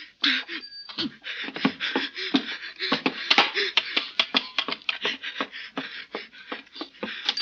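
Radio-drama sound effects of a fistfight: an irregular run of blows, knocks and scuffling, with grunts and gasps from the men struggling.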